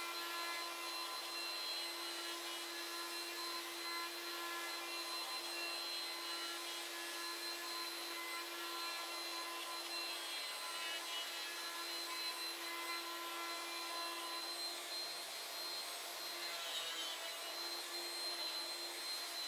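CNC router's spindle motor running at a steady high speed, a constant whine, while its end mill cuts a profile through a wooden sheet.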